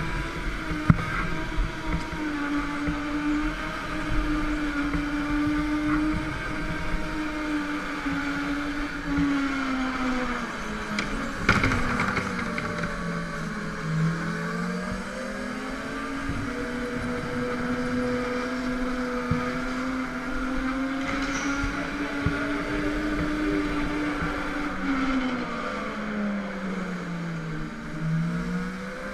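Go-kart motor running through laps, its pitch dipping twice as the kart slows for corners and climbing back as it accelerates out. A short knock about twelve seconds in.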